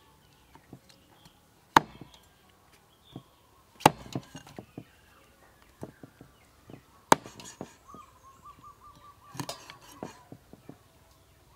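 Cleaver chopping on a wooden cutting board: three sharp, loud chops a couple of seconds apart, with lighter knocks between them. About two-thirds of the way in, a quick run of short high chirps.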